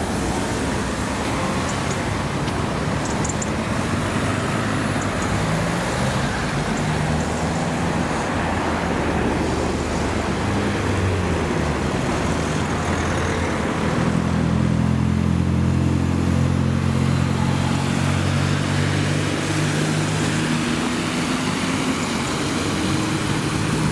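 Road traffic: a steady wash of vehicle noise, with a vehicle engine's low hum that grows louder a little past halfway.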